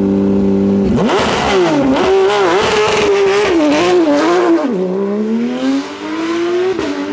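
A hillclimb race car's engine held at steady revs on launch control, then launching about a second in. The revs waver as the car pulls away, drop at a gear change about five seconds in, and climb steadily again.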